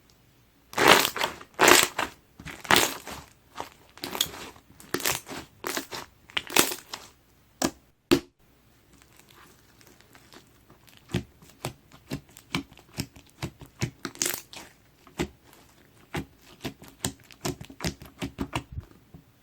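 Clear jiggly slime made from clear glue being squeezed and poked by hand: a string of sharp, irregular squishes, loudest in the first eight seconds, then a run of softer, quicker clicks and pops.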